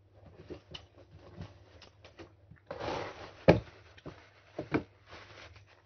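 Close-up eating and food-handling noises: scattered small clicks and mouth sounds, a short rustling hiss about three seconds in, then a sharp knock, the loudest sound, with two more knocks about a second later.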